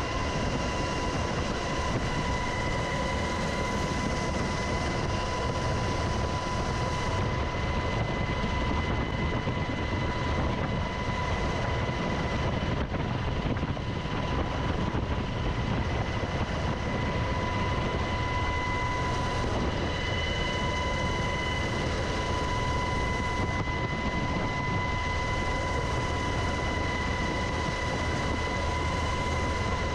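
UH-60 Black Hawk helicopter in flight, heard from inside the cabin at the open door: a loud, steady rush of twin-turboshaft engine and rotor noise with a steady high whine over it.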